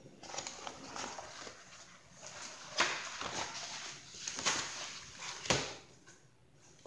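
Pages of a hardcover picture book rustling as the book is handled and the pages are turned, with three sharp paper snaps, the last about five and a half seconds in.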